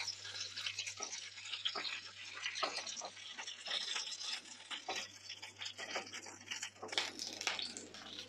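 Hot oil in a frying pan sizzling with a steady hiss and irregular small crackles and pops, from the freshly fried chicken steaks being lifted out.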